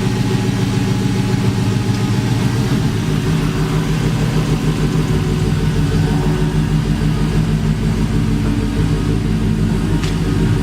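Truck engine running steadily, with a low drone that shifts slightly in pitch about three seconds in.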